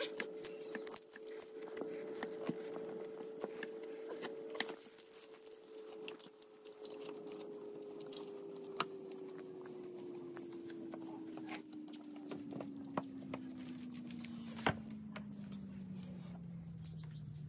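Feathers being hand-plucked from a scalded rooster: wet feathers pulled and rubbed off in a scatter of small clicks and ticks. Under it a steady hum slowly drops in pitch over the second half.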